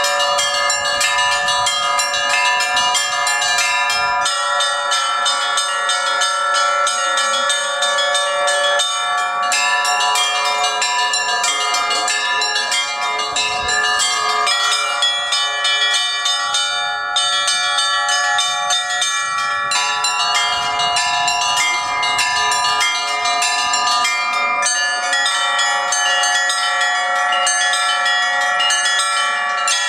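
Russian church bells ringing in a continuous peal: many bells of different pitches are struck in quick, overlapping succession, and their tones ring on together without a break.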